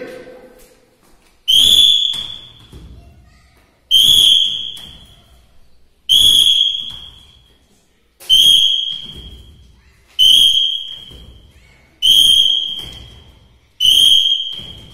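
Seven short, sharp blasts on a PT teacher's whistle, about one every two seconds, each echoing away in a large bare hall. They are drill signals for schoolchildren to come to 'attention' and 'stand at ease'.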